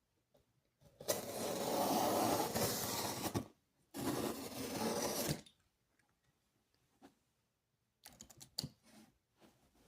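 Product box packaging being opened by hand: two long scraping, tearing rustles, then a run of light clicks and taps near the end.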